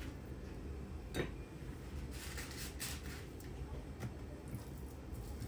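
Quiet hand-work at a kitchen counter while folding warqa pastry for briouats: a single sharp tap about a second in, then a short spell of rustling of the thin pastry sheet around two to three seconds in, over a low steady hum.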